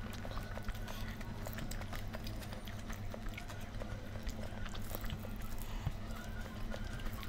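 A person eating close to the microphone: irregular small clicks and smacks of chewing and handling food, over a steady low hum.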